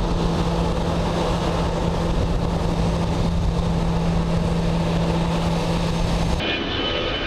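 Jet airliner engines running: a steady loud drone with a constant low hum. About six seconds in it changes abruptly to a higher, whining jet engine sound.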